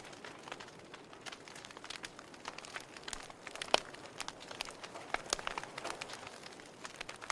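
Wood fire crackling in a fireplace: a soft hiss with irregular sharp pops and snaps, the loudest a single sharp pop nearly four seconds in.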